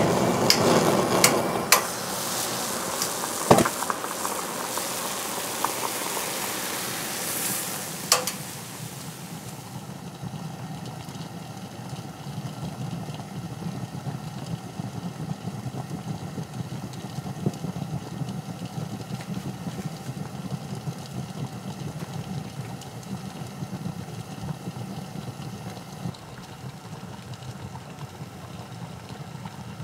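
Gas burner flame hissing loudly, with a few sharp clicks, then from about ten seconds in a steady low rumble as a wooden-lidded pot heats on the flame.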